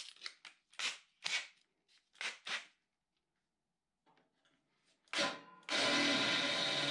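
Ridgid cordless drill: a run of short clicks as a bit is fitted and tightened in the chuck, then a pause. Near the end the drill starts and runs steadily, boring into the mower's steel deck.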